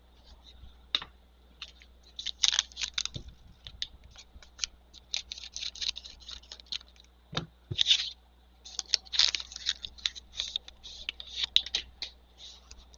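A trading-card pack being torn open and handled: quick crackling and rustling of the pack wrapper and cards sliding against each other, coming in short runs, busiest over the second half.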